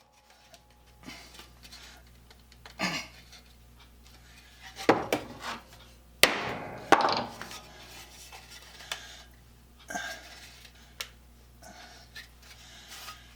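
Scattered knocks and clanks of the riveted test piece, a wooden board between steel plates, being handled on the bench. The loudest clanks come in a cluster about five to seven seconds in.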